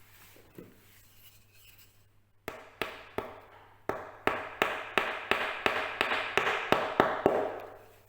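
Hammer tapping glue-dipped wooden dowel plugs into stripped hinge-screw holes in a door frame. It starts about two and a half seconds in and gives a run of about fourteen sharp taps, roughly three a second.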